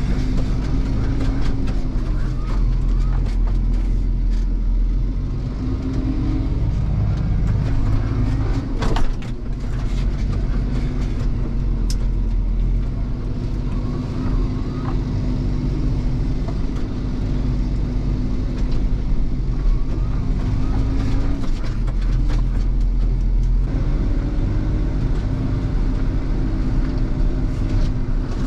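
Fendt tractor's diesel engine running steadily under load, heard from inside the cab while it pushes snow with a front-mounted implement; its pitch drifts slightly up and down, with a single sharp knock about nine seconds in.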